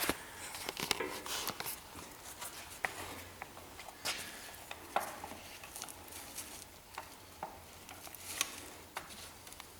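Scattered metal clinks and knocks of hand tools and steel front-suspension parts being handled and worked loose, with a few louder knocks.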